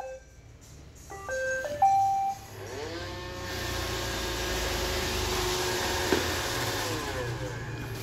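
iRobot Roomba 780 started with its Clean button: a click, a short tune of electronic beeps, then its vacuum and brush motors spin up with a rising whine and run steadily, winding down with a falling whine near the end.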